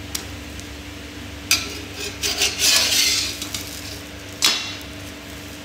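Kitchen utensil scraping and clinking against cookware over a steady low hum: a sharp clink about a second and a half in, a longer scrape around the middle, and another sharp clink near the end.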